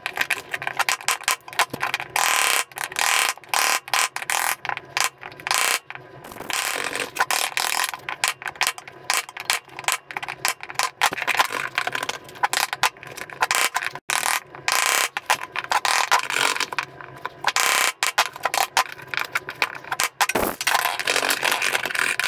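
Steel chisel paring and scraping wood by hand: a quick, irregular run of short scraping strokes and clicks as a shallow square recess is cleaned out.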